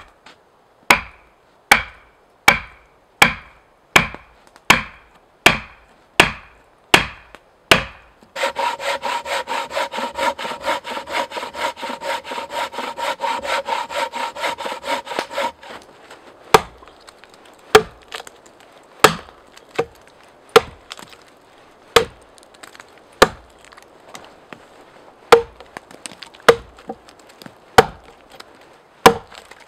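About ten sharp wooden knocks, evenly spaced. Then a bow saw cuts through a log in fast, steady rasping strokes for about seven seconds. It ends with an axe chopping into the log, hewing it flat, at a little under one stroke a second with chips flying.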